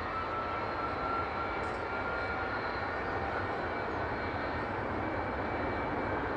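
Jet airliner engine running, a steady rush with a thin whine that slowly rises in pitch.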